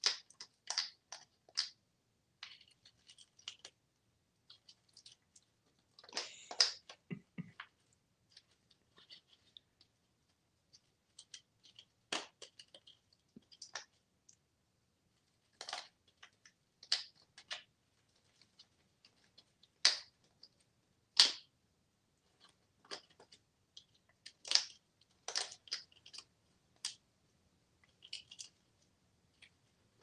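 African grey parrot's beak working at a toy credit card and its cover, pulling and tearing at it: irregular sharp clicks and short scratchy rasps, scattered with gaps of near silence between them.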